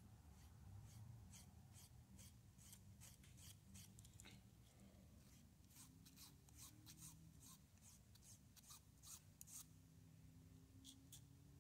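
Small flat file stroked across the edges of masking tape wrapped on a small metal part, trimming the tape flush: faint, quick scratching strokes about two or three a second, a short pause, then two more strokes near the end.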